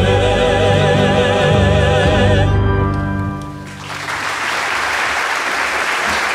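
Singers with accompaniment hold the long final chord of the song with vibrato, the voices cutting off about two and a half seconds in and the lower notes dying away a second later. About four seconds in, the audience breaks into applause.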